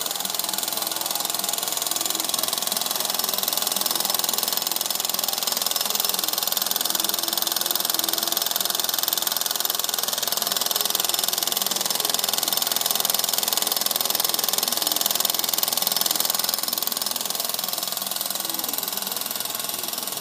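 Steam donkey engine running, a steady hiss of steam with rapid mechanical clatter. It grows slightly louder through the middle and eases off somewhat near the end.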